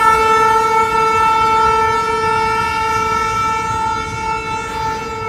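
Train horn sounding one long, steady, single-pitched blast that slowly eases off toward the end. Beneath it is the low rumble of a goods train of tank wagons rolling past.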